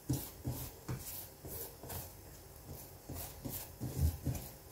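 Hands rolling a sheet of cinnamon-spread dough into a log on a work surface: soft, irregular thumps and brushing rubs a few times a second, the firmest press about four seconds in.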